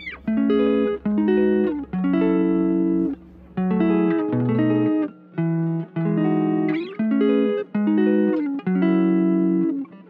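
Background music: a plucked guitar playing short chord phrases separated by brief pauses.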